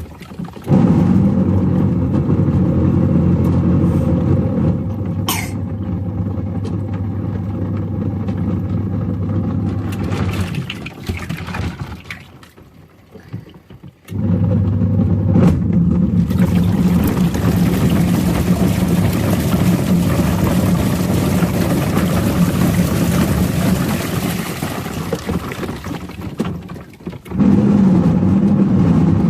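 Washing machine motor running and churning water with a steady hum. It winds down almost to quiet about twelve seconds in and starts again about two seconds later, growing louder near the end.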